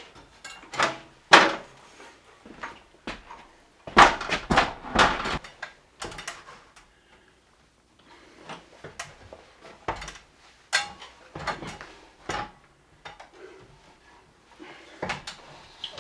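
Irregular knocks, clunks and short scrapes of hands and hardware working on a stair counterbalance pulley mounted on wooden stairs. They are loudest in a cluster a few seconds in, with a short lull past the middle.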